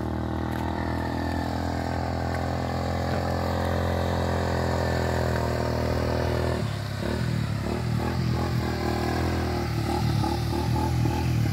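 An engine running steadily at low revs; about six and a half seconds in its sound turns uneven and pulsing.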